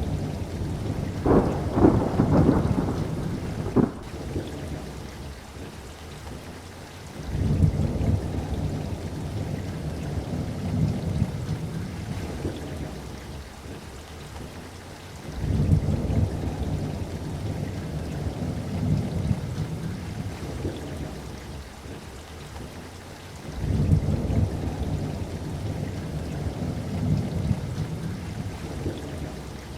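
Thunderstorm: steady rain with rolling thunder. A sharper peal comes near the start, then three more low rumbles about seven, fifteen and twenty-three seconds in, each fading away over several seconds.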